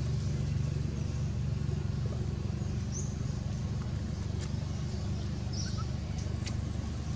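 Steady low rumble, with a few faint short high chirps about three and six seconds in and some light clicks.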